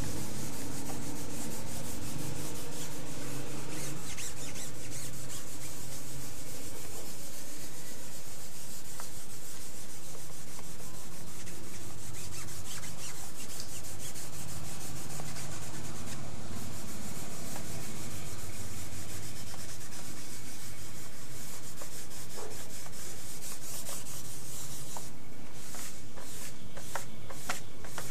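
Cotton balls rubbing machine oil into printed bond paper on a hard tabletop, a continuous scratchy rubbing as the oil soaks in and turns the paper translucent. Near the end the strokes come through as separate rubs, about two a second.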